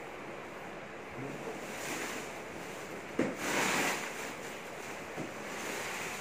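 Clear plastic wrapping being pulled off a keyboard's cardboard box, rustling and crinkling, loudest in a crackling burst of about a second that starts sharply about three seconds in, over a steady background hiss.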